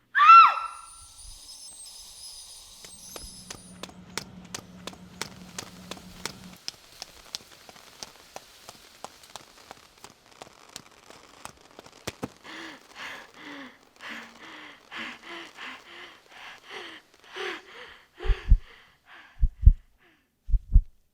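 A sequence of sound effects: a loud falling tone at the start, then scattered sharp ticks like raindrops over a faint hiss, then a run of short rhythmic breaths like panting. Near the end come slow double thumps of a heartbeat, a pair a little over a second apart.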